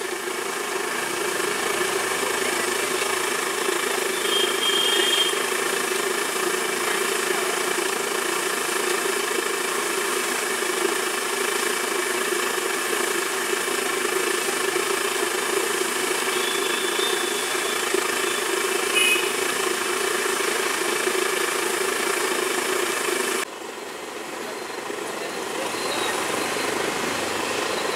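Banana slices deep-frying in a large wok of hot oil: a steady, dense sizzle with a low steady hum beneath it. About 23 seconds in the sizzle cuts off suddenly, leaving quieter street noise.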